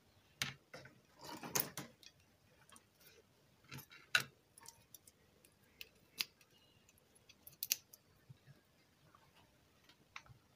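Scattered small clicks and taps of an RCA plug and its leads being handled and pushed into an amplifier board's input socket on a workbench. The sharpest click comes about four seconds in.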